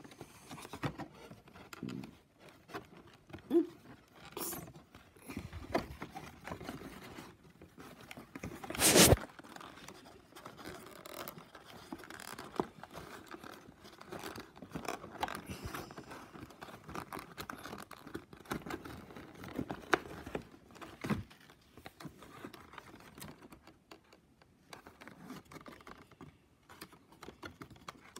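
Cardboard pieces of an advent calendar play scene being handled and fitted together: scattered taps, scrapes and rustles, with one louder rasp lasting about half a second around nine seconds in.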